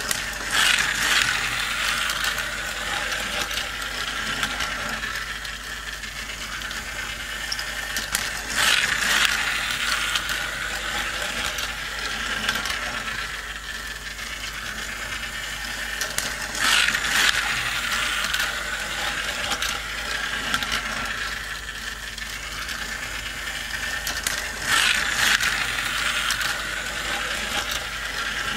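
A motorised toy car race track running: its small motor and plastic gears ratchet and rattle steadily as two toy cars are carried round the track. A louder clatter comes back about every eight seconds.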